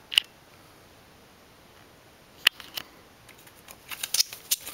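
Cardboard LP record sleeves being handled: a sharp click just after the start, two more a little past halfway, then a quick run of taps and scrapes near the end as one album jacket is moved off the stack.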